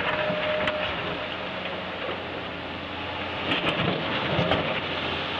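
Cat 330 excavator's diesel engine running steadily while its chuck blade scrapes and pushes dirt and rocks, with a few sharp clanks and rattles of stones about three and a half to four and a half seconds in.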